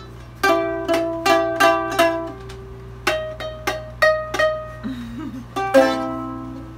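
Ukulele strummed by hand: a run of chords, a few strokes a second with short pauses, each chord ringing briefly.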